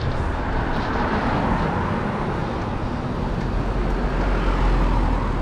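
Main-road traffic running close by: a steady rumble of cars and a bus, swelling as vehicles pass.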